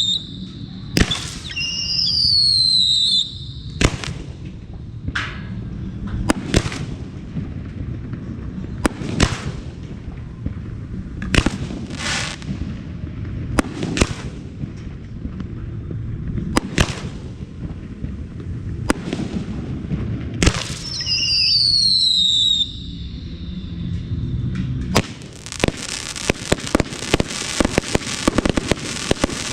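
Fireworks display: shells bursting with sharp bangs every second or two over a low rumble, with a falling whistle twice. Near the end it turns to a dense, rapid crackling.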